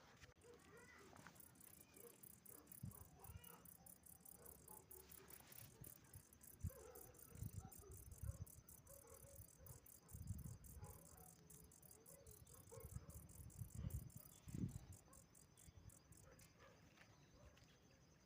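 Cicada calling faintly: a high, rapidly pulsing buzz that fades out near the end. Low thumps and rustles of handling or footsteps come in the middle.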